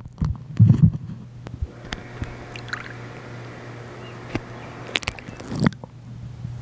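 Swimming-pool water sloshing and splashing around a microphone dipped at and under the surface, with muffled gurgling and clicks. Louder splashes come about half a second in and again around five seconds in, over a steady low hum.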